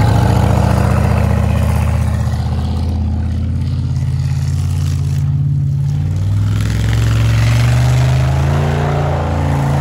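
Pickup truck engine revving hard as the truck spins donuts in deep snow, its pitch climbing about two-thirds of the way through.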